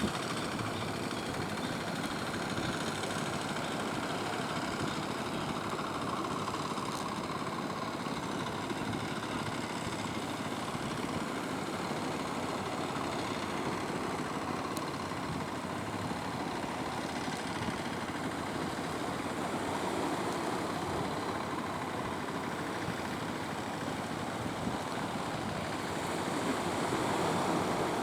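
Fishing boat engine running steadily, mixed with the wash of surf and wind, getting a little louder near the end.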